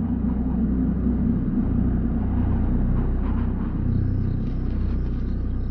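A low, steady rumbling drone.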